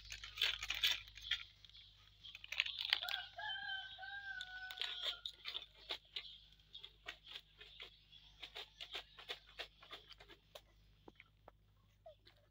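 Open wood fire crackling with frequent sharp pops as it singes an animal carcass. A rooster crows once in the background about three seconds in, a single drawn-out, slightly falling call.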